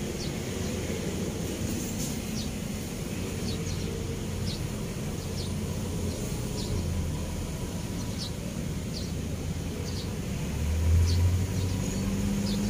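Low steady rumble of traffic on a road bridge, swelling about eleven seconds in as a vehicle passes. Short high chirps from a bird repeat every second or so.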